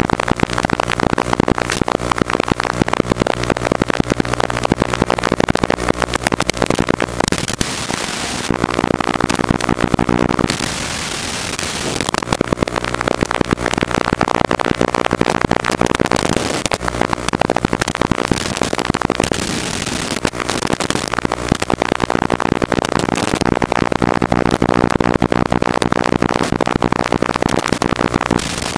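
Small FPV racing quadcopter's motors whining, their pitch rising and falling with the throttle, under constant heavy crackle. The sound eases briefly about ten seconds in.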